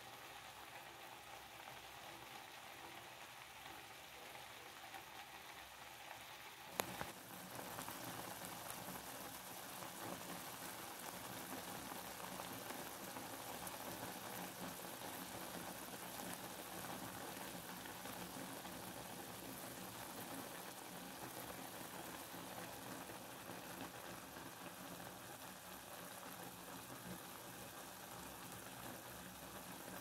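Steady rain, an even hiss of falling drops. A single sharp click comes about seven seconds in, after which the rain is louder.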